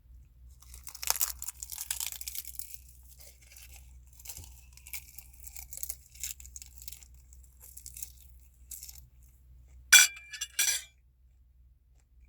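Close-up eating sounds: crackly crunching for the first several seconds, then a sharp utensil clink against a dish about ten seconds in that rings briefly, followed at once by a second lighter clink.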